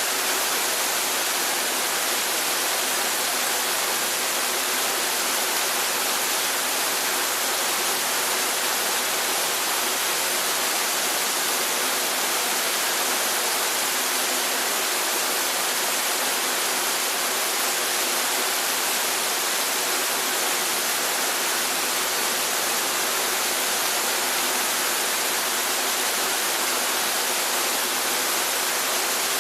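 Running water, a steady, even rush with no breaks or changes.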